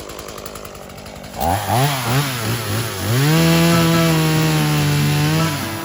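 Chainsaw revved in quick throttle blips four times, then held at full throttle for about two and a half seconds before letting off near the end.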